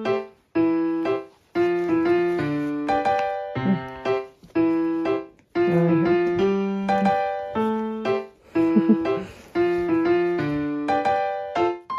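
Background music: a light electric-piano melody in short phrases, with a faint small squeak or yip from a puppy near the end.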